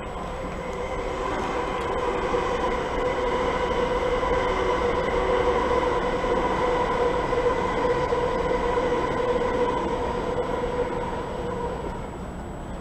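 Electric multiple-unit passenger train running by, its motors giving a steady whine of several held tones over a low rumble, growing louder over the first few seconds and fading near the end.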